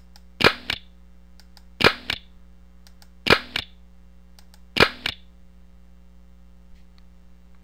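Computer mouse button clicked four times, about one and a half seconds apart, each a quick press-and-release double click sound. A steady low electrical hum runs underneath.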